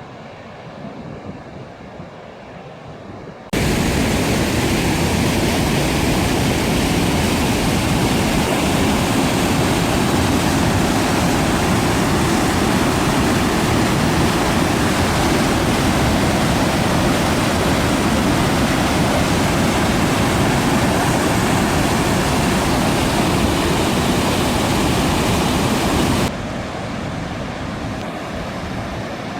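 Goðafoss waterfall: a loud, steady rush of falling water that starts suddenly a few seconds in and cuts off suddenly near the end. Quieter water and wind sound lies on either side.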